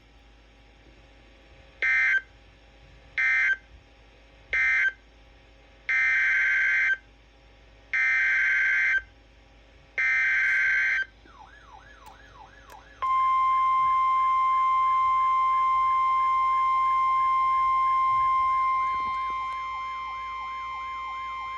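NOAA Weather Radio EAS/SAME data bursts: three short end-of-message bursts, then three longer header bursts announcing the next Flood Warning. These are followed by the steady 1050 Hz warning alarm tone, which drops in level near the end. A faint, repeating wavering sweep runs alongside the bursts and the tone.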